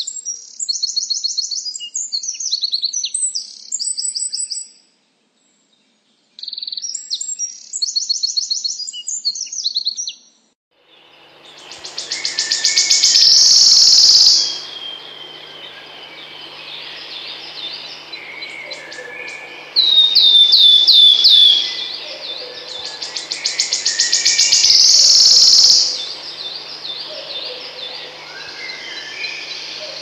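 A Eurasian wren sings two loud, rapid trilling song phrases with a short pause between them. About eleven seconds in, a wood warbler takes over with its shivering trill, which speeds up and grows louder before stopping abruptly. The trill comes twice, with a short run of descending piping notes between, over other birds and a faint hum.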